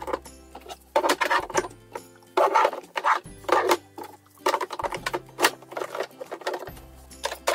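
Background music with a steady bass line, over quick clicks and clatter of plastic makeup bottles and tubes being moved about in a drawer.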